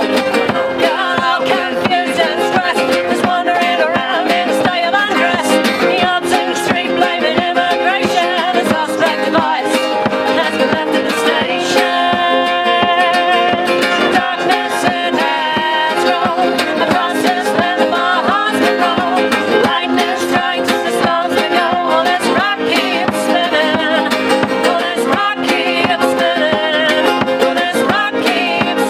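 Acoustic string band playing an upbeat tune: strummed acoustic guitars and a small plucked string instrument under a fiddle melody.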